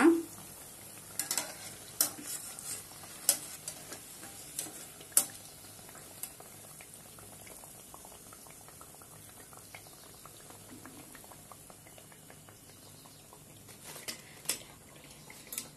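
Gram-flour-battered bajji frying in hot oil with a faint, steady sizzle, while a steel spider strainer clinks sharply against the kadai as the browned pieces are scooped out. A few more clinks come near the end as they are tipped onto a steel plate.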